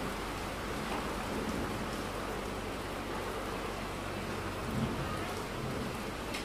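A steady, even hiss like falling rain.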